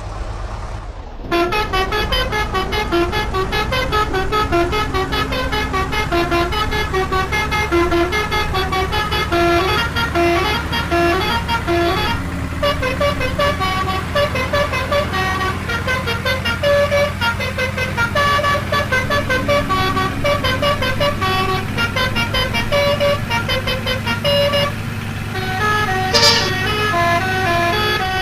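Indonesian 'telolet' bus horn, a multi-tone horn playing a quick melody of short stepped notes over and over. It starts about a second in and runs over the steady hum of the bus engine idling.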